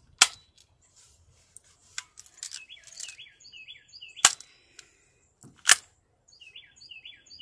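Three sharp clicks: one right at the start, one about four seconds in and another a second and a half later. Between them a small songbird chirps in quick runs of short falling notes.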